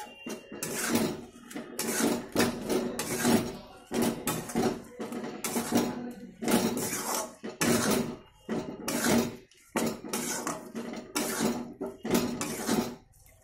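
Metal spatula scraping and stirring jujubes in thick jaggery syrup in a metal wok, in repeated strokes about one to two a second, folding in the spice powder.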